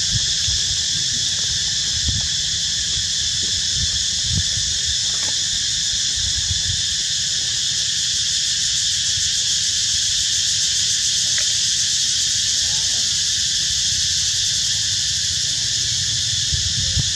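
A steady, high-pitched insect chorus drones on without a break, over a low rumble with a few soft thumps.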